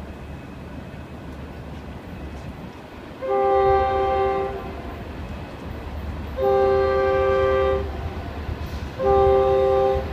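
Diesel locomotive air horn on an approaching Union Pacific freight, sounding a chord of several tones in two long blasts and then a short one: the start of the long-long-short-long grade-crossing signal.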